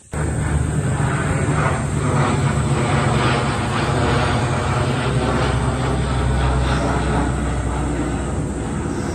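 Turboprop aircraft flying low overhead: a loud, steady propeller drone with deep humming tones, easing off slightly near the end as it passes.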